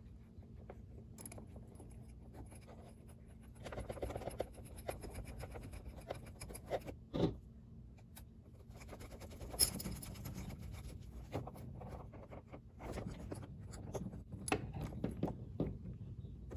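Hex driver turning small screws into an aluminium shock tower: irregular scratching and scraping of the tool in the screw heads, with a few sharp metal clicks, the loudest about seven and ten seconds in.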